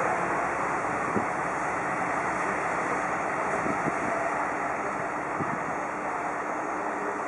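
Diesel railcar idling at a station platform: a steady engine rumble with a few faint ticks and knocks.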